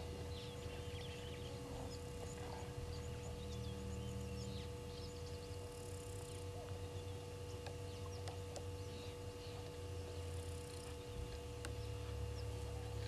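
Outdoor bush ambience: scattered small bird chirps over a steady low rumble and a constant hum.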